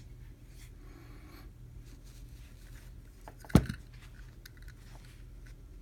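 Faint scraping and handling noises over a low steady hum, with one short sharp knock about three and a half seconds in.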